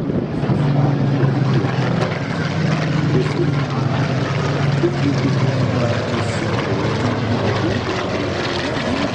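A Supermarine Spitfire's V12 piston engine running in a low propeller fly-past, a steady deep drone that weakens after about six seconds.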